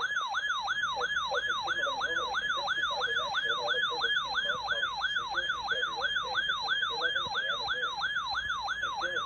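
Weather-radio warning alarm sounding for its weekly test: an electronic siren tone sweeping quickly downward in pitch, about three sweeps a second, repeating steadily.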